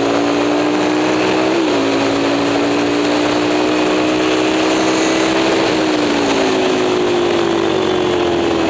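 Moto Morini 350 V-twin four-stroke engine under racing load. Its pitch climbs, drops sharply with a gear change about a second and a half in and climbs again, then eases off and falls steadily from about six seconds in.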